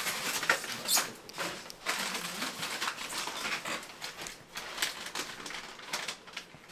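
Rustling and scraping of a chemical protective suit and rubber gloves as the wearer moves and handles gear close to the microphone, with irregular short scrapes and a few clicks.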